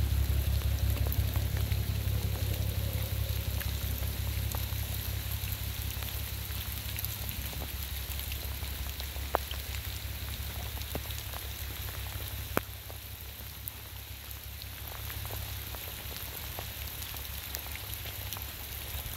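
Storm runoff water rushing at a plugged culvert: a steady hiss of water over a deep rumble that slowly fades, with a few sharp ticks.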